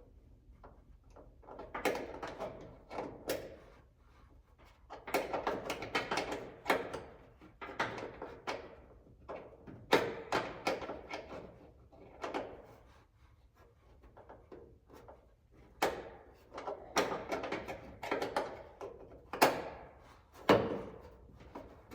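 Irregular knocks, clicks and scraping rattles of parts and hardware being handled by hand while fitting a fender rock guard to a car body, in clusters of a second or two with short pauses between.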